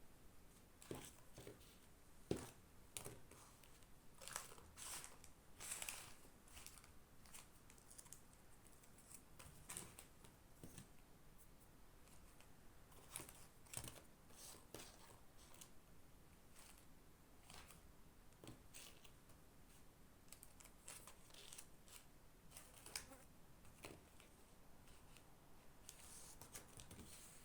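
Slime being handled and mixed by hand, giving faint, irregular clicks, pops and crackles, with a few louder snaps scattered through.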